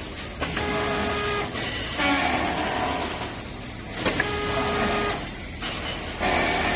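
Machinery running in a repeating cycle about every two seconds: a steady whine with higher overtones for about a second, then a brief dip, over a constant low rumble.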